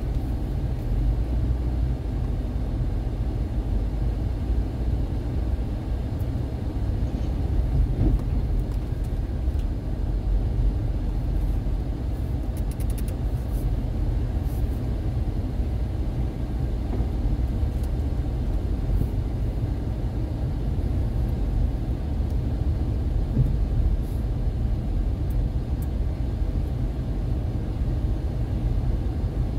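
A car on the move: a steady low rumble of engine and road noise, with a brief knock about eight seconds in.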